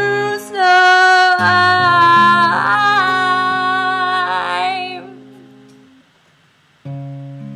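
A woman singing long drawn-out, wavering notes over an acoustic guitar, the voice and guitar fading away about five seconds in. After a short pause the guitar comes back in with a new chord near the end.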